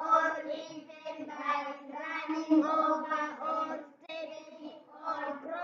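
A class of children reading aloud together in unison, in a drawn-out sing-song chant held on a steady pitch.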